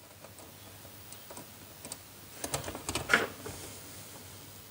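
Small clicks and rustles of a stripped copper wire and plastic switch-board fittings being handled by hand, with a few sharper clicks about two and a half to three seconds in.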